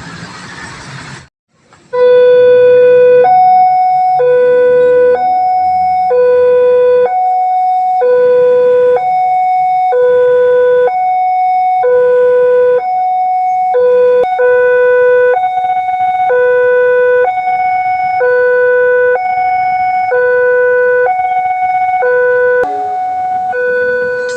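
Railway level-crossing warning alarm sounding, an electronic siren that alternates a low and a higher tone, each held about a second. It starts about two seconds in, after a moment of street noise and a brief break.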